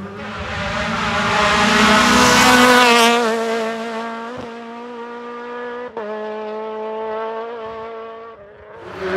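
A rally car's engine at full throttle as the car passes: the engine note swells to its loudest about two to three seconds in, then holds a fairly steady pitch as the car draws away, with two brief breaks in the note around four and a half and six seconds in, and fades out near the end.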